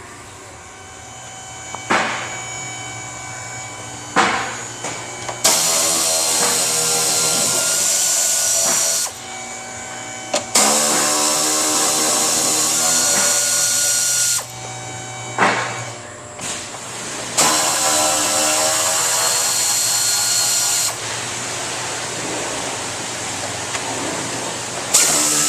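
Power drill-driver running in four bursts of about three to four seconds each, with short pauses between them and a couple of clicks before the first, as fasteners are spun out of body panels on a Porsche 991.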